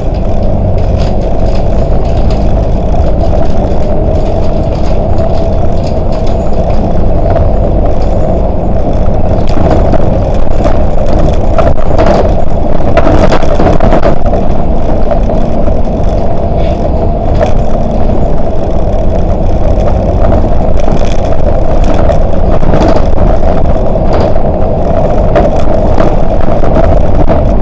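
Volvo 8900LE city bus on the move: steady engine and road noise with a constant drone, broken by scattered short rattles and knocks.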